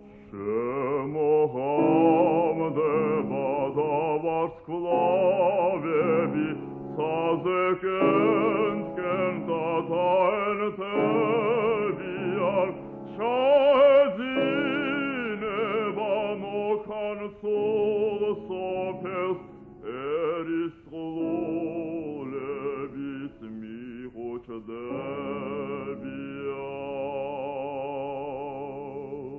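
A male classical singer sings a Georgian romance with wide vibrato over piano accompaniment. The voice comes in about a second in. The old recording lacks any treble.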